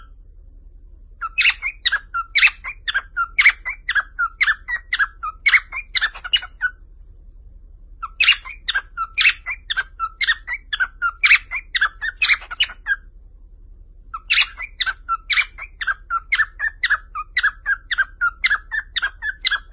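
Cockatiels chirping: quick, sharp, repeated chirps, about four a second, in three bouts of roughly five seconds each with short pauses between.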